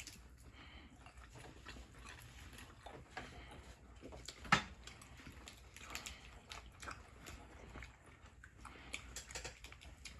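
Close-up eating sounds: chewing and smacking of seafood, with scattered small clicks and one sharp click about four and a half seconds in.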